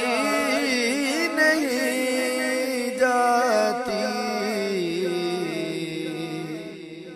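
Male voice singing an Urdu noha, a lament for Imam Hussain, holding long, wavering ornamented notes over a steady low hum that drops in pitch about four seconds in. The singing fades near the end.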